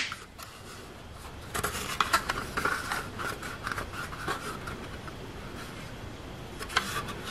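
A plastic filament spool with a 3D-printed gear zip-tied to it, handled and turned in the hands: light scraping and rubbing of plastic, with a few small clicks about two seconds in and again near the end.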